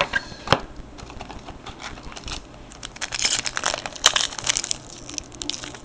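A sealed hockey card pack's wrapper being crinkled and torn open with effort: two sharp snaps near the start, then a dense spell of crinkling in the second half. The pack is hard to open.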